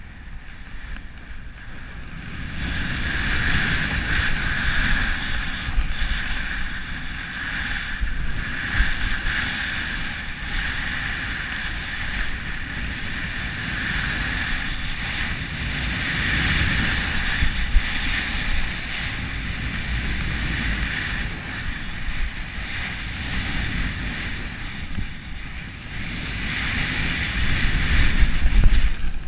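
Snowboard hissing and scraping through snow at speed down a steep slope, mixed with wind rushing over the GoPro camera's microphone. The rush gets louder about two seconds in, swells and fades with the turns, and is loudest near the end.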